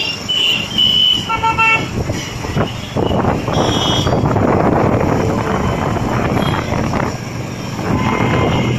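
Dense road traffic: several vehicle horns toot in short blasts in the first two seconds and once more about three and a half seconds in, over a loud, steady rumble of engines and tyres that fills the rest.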